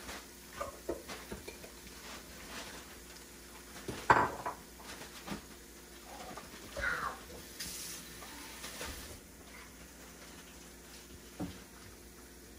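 A spoon clinking, knocking and scraping against a bowl while ground egusi seed is stirred into a paste. There are scattered clinks, a louder knock about four seconds in and a brief hiss past the middle.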